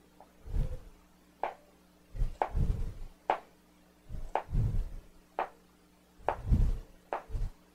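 Chef's knife dicing carrot sticks into small cubes on a plastic cutting board: a handful of sharp taps of the blade on the board, spaced a second or two apart, with duller thumps in between.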